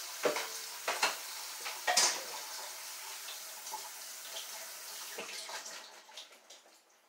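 Kitchen tap running into a stainless-steel sink while a colander is handled under it, with a few sharp knocks. The water stops about six seconds in.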